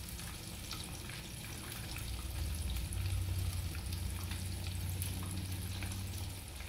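Food frying in pans on a stove: steady sizzling with light crackles.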